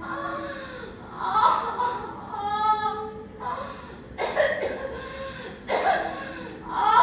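A woman wailing and moaning in pain in a string of drawn-out, high-pitched cries, the labour pains of a woman near childbirth, broken by two harsh, breathy outbursts about four and six seconds in.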